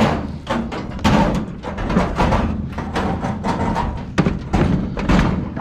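Repeated metal clanks, thumps and rattling of a heavy old appliance being shifted and handled.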